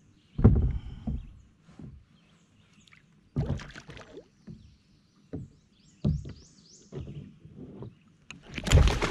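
Irregular thumps and knocks against a kayak hull as a bowfishing arrow and the shot fish are hauled in by line to the side of the boat. The loudest knocks come about half a second in and near the end.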